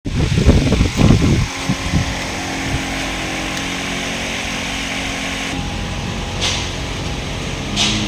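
About a second and a half of low, uneven rumbling buffeting. Then a steady machine hum with a hiss over it. The hiss thins a little past halfway, and two or three brief soft sounds follow near the end.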